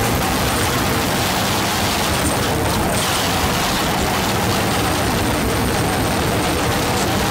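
A steady, dense wall of harsh noise, noise-music style, holding one level throughout with faint steady tones underneath.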